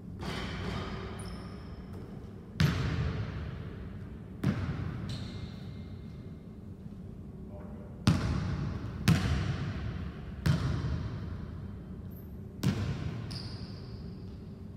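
Basketball bouncing on a hardwood gym court: about seven separate sharp bangs, one to two and a half seconds apart, each ringing on in the echo of the hall. A few brief high squeaks come between the bounces.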